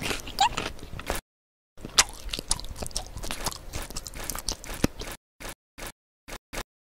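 Close-up mukbang eating sounds: crunchy food being bitten and chewed in two long stretches, then four brief snips of sound near the end, cut apart by dead silence.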